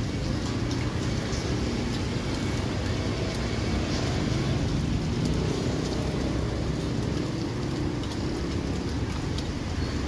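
Takoyaki batter sizzling in a gas-fired takoyaki griddle, a steady crackling hiss with faint ticks, over a steady low rumble.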